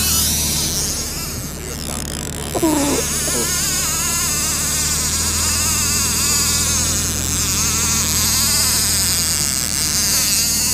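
A line-counter trolling reel's drag screaming as a king salmon runs line off it, a continuous high buzz. The low, steady hum of the boat's motor runs underneath.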